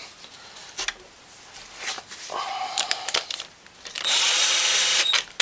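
Cordless power tool whirring steadily for about a second near the end, running down one of the 10 mm bolts that hold the cam chain tensioner. Before it come a few light clicks and knocks of metal parts and tools.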